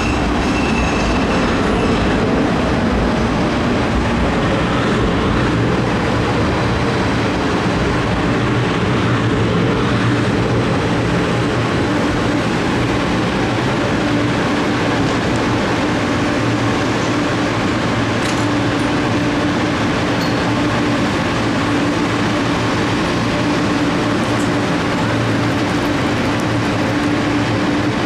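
Edmonton LRT light-rail train coming to a stop at an underground platform: a high wheel-and-brake squeal fades out in the first second or two. The standing train then hums steadily.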